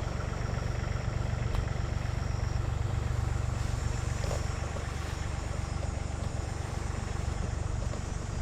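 Bobcat E42 mini excavator's diesel engine running steadily at a constant speed, a deep even drone.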